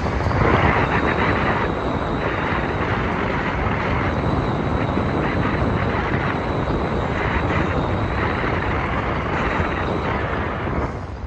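Steady roar of wind and road noise heard from the open cargo bed of a Suzuki pickup driving through a road tunnel, with a faint steady high whine running through it. The roar drops off near the end as the pickup comes out of the tunnel.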